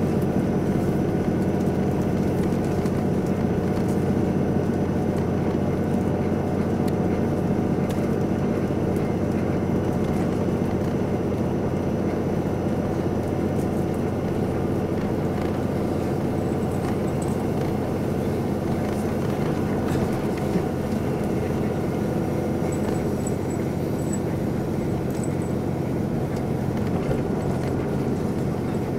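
Onboard running sound of a KiHa 182-40 diesel railcar of the KiHa 183 series, its DML30HSI diesel engine and wheels on the rail making a steady drone.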